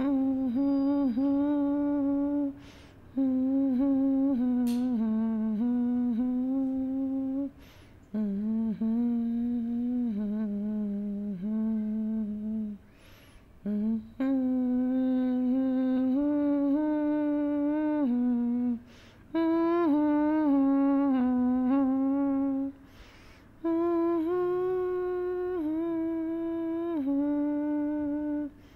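A single voice humming a slow, wordless tune in phrases of a few seconds, with a breath taken in the short gaps between phrases.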